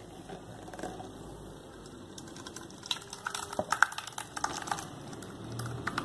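A quick run of light clicks and knocks from handling the blender jar over a glass baking dish, then thick corn batter starting to pour into the dish near the end.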